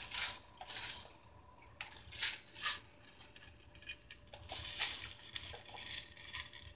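Handfuls of raw spinach leaves rustling and crinkling as they are dropped and pressed into a stainless saucepan of boiling water: a string of short, crackly rustles.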